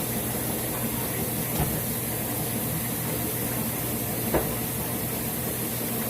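Washing machine running with a steady hum and hiss. A single knock comes about four seconds in.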